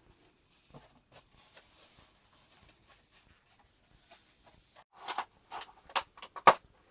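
Faint rustling and small clicks, then from about five seconds in a handful of sharp clicks and knocks as items are handled and packed into boxes.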